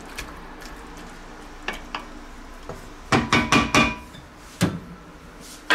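A wooden spatula stirring in an enamelled cast-iron Dutch oven with a few light clicks, then four or five quick knocks with a short ring about three seconds in as the spatula hits the pot, and one more knock later.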